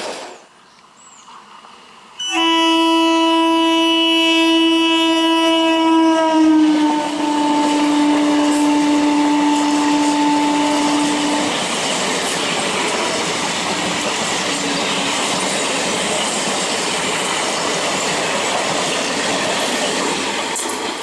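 A passing electric train sounds one long horn blast that starts suddenly about two seconds in and lasts about nine seconds. The horn's pitch drops as the train goes by. After the horn stops, the steady rush and wheel clatter of the passing carriages carry on.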